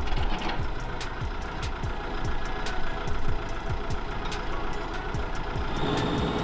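Excavator's diesel engine running, under background music with a steady beat of low thumps about twice a second and light ticks.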